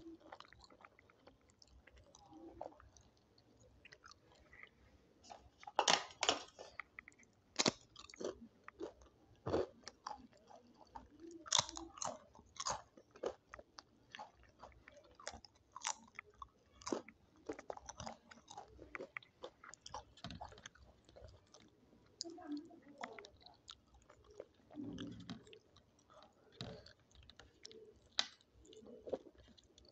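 Close-up eating of dal, rice, papad and salad: moist chewing broken by many sharp, irregular crunches of crisp food, loudest and most frequent in the first half.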